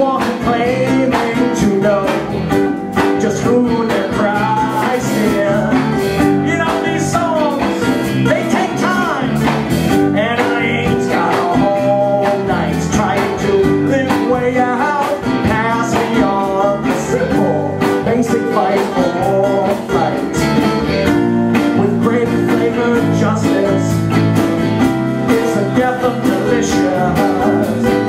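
Live band playing electric guitars, electric bass and a drum kit, with wavering, bending melody lines over a steady low end.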